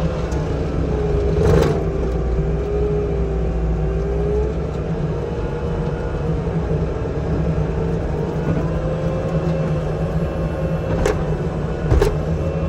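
Forestry mulcher on a compact loader running steadily while grinding brush, heard from inside the cab. The drum's whine drops in pitch under load about a second in and recovers a few seconds later. Sharp knocks come at about a second and a half in and twice near the end.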